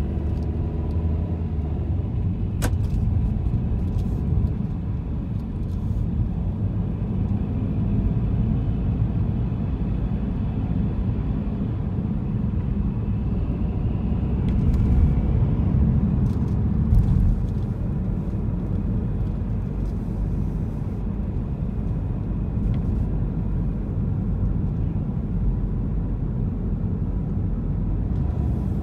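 Car driving along: a steady low rumble of engine and road noise, swelling a little about halfway through.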